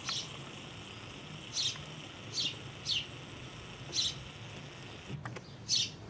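Sparrow chirping: about six short, high, downward-sliding chirps, a second or so apart, over a steady low background hum.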